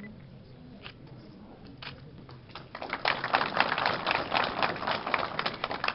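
A few scattered hand claps, then a crowd applauding for about three seconds, fading near the end.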